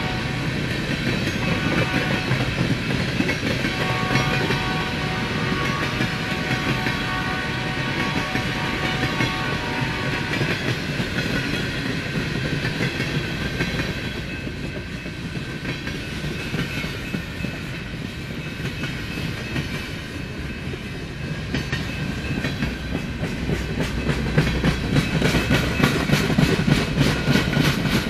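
Empty flatcars of a freight train rolling past, with steel wheels rumbling and clicking over the rail joints. The clicks come faster and louder near the end.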